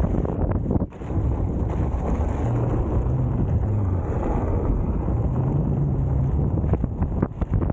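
Wind buffeting a camera microphone carried low beside a moving Veteran Patton electric unicycle, over the rumble of its tyre rolling on a dirt road. The noise dips briefly about a second in and again near the end.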